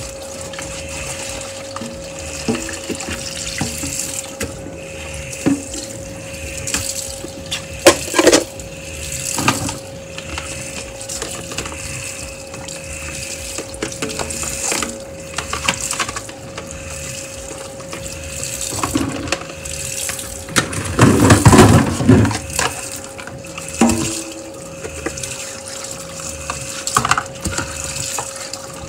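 Kitchen tap running into a stainless steel sink as dishes are washed by hand: splashing water with knocks and clatters of dishes and plastic containers, and a louder clatter about twenty-one seconds in. A steady hum runs underneath.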